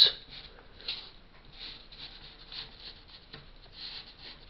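Graphite pencil scratching on paper in short, soft strokes, sketching a freehand line through plotted points.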